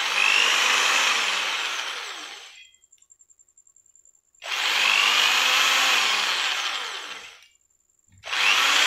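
Handheld electric drill with a twist bit spinning freely in its chuck, run in short bursts to show its speed settings. It starts abruptly twice, runs for about two to three seconds each time and winds down after release, then starts again near the end.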